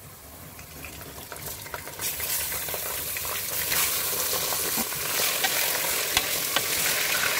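Raw beef pieces sizzling in hot oil and browned onions in an aluminium pressure cooker. The sizzle builds over the first two seconds as the meat goes in, then holds while a spatula stirs it, with occasional sharp clicks against the pot.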